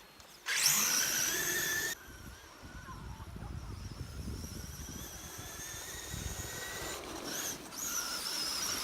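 Electric motor of a Traxxas E-Revo radio-controlled truck whining. A loud burst of throttle starts about half a second in and cuts off sharply at about two seconds. It then runs on with a steadier whine that slowly climbs and wavers near the end.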